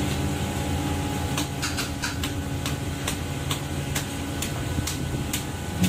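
A steady low engine-like hum, with a run of sharp ticks, about two or three a second, that starts about a second and a half in and stops near the end.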